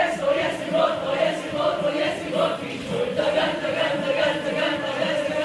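A group of voices singing together over music with a regular beat.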